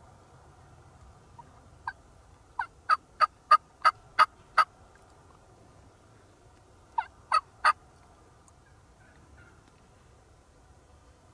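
Turkey calling a series of short, sharp yelps: a faint first note, seven loud ones about a third of a second apart, then after a pause three more.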